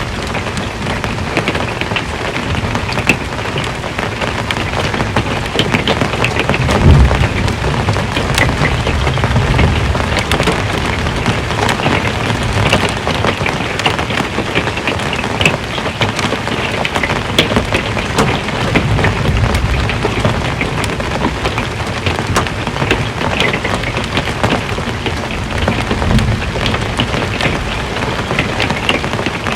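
Steady rain falling on the metal roof of an RV, with many sharp drop ticks. Low thunder rumbles swell and fade several times, the loudest about seven seconds in.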